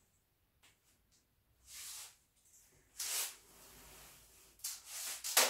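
Stiff can-can net fabric rustling and rubbing as it is handled on the table, in a few short bursts with the loudest near the end.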